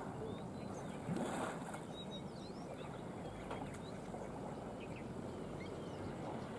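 Outdoor ambience: a steady low rumble with many short, faint bird chirps scattered throughout, and a brief louder rush of noise about a second in.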